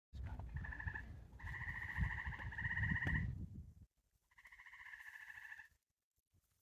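Tree frogs calling at night: three fast-pulsed trills, the middle one the longest, over a low rumble that stops about four seconds in.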